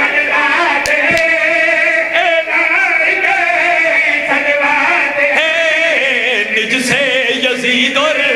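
A group of men singing a qasida together into microphones, in long, wavering held notes.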